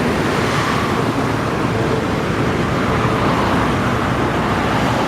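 Wind rushing over the microphone on a moving motorcycle taxi, a loud steady rumble, with the scooter's engine and road traffic beneath it.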